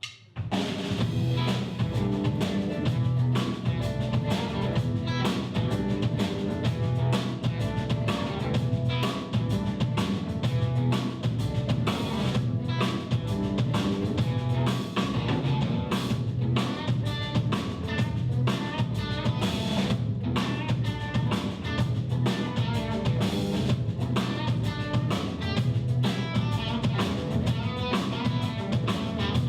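Blues band playing live without vocals: drum kit keeping a steady beat under electric guitar and bass.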